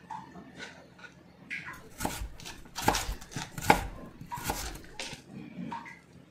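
Serrated kitchen knife cutting florets off a raw cauliflower head on a plastic cutting board: a run of crunching cuts and knocks, sparse at first and loudest between about two and five seconds in.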